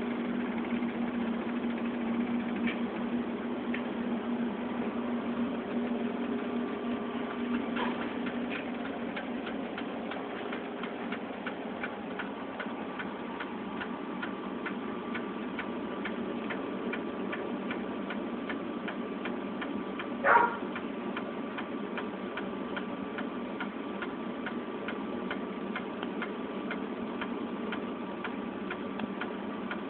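Steady bubbling hiss of pots of chicken stock at a rolling boil on the stove, with a low hum in the first several seconds. A fast, regular ticking comes in partway through, and a single short sound falling in pitch stands out about two-thirds of the way in.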